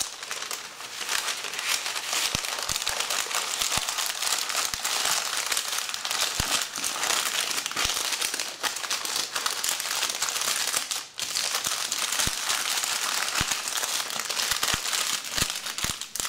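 Parchment paper crinkling and rustling as it is folded and creased around a handful of wood chips into a packet, with a brief lull about eleven seconds in.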